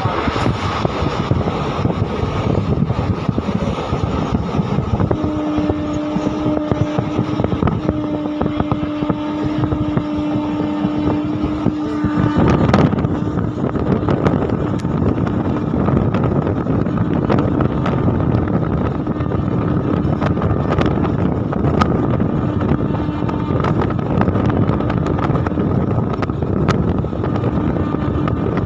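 Passenger train running at speed with steady wheel and wind rumble. Its horn sounds two long, steady blasts in the first half. A sharp bang comes just as the second blast ends.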